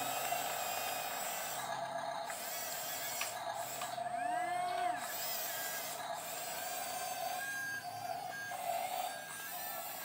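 Whine of a toy RC tracked bulldozer's small electric drive motors and gearbox as it crawls over soil, steady at first, then stopping and starting in short spurts in the last few seconds.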